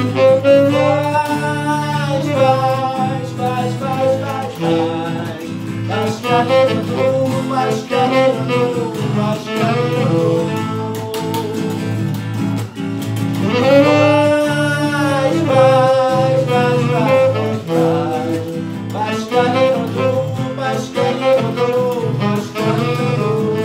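Saxophone playing a melodic instrumental solo over two acoustic guitars playing chords.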